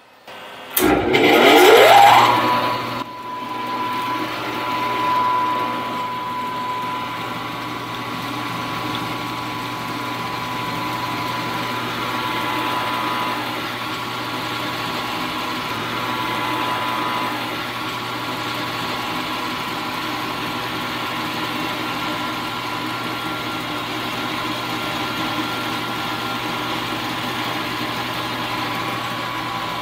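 Benchtop mill-drill's spindle motor switched on with a click and winding up over about two seconds, then running steadily at about 1000 RPM with a steady high whine.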